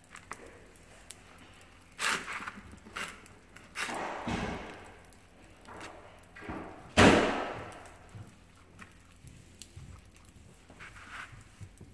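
Hands squelching and slapping shaving cream mixed with paint and popping candy in a plastic tray: scattered squishes and knocks, the loudest a sharp thump about seven seconds in.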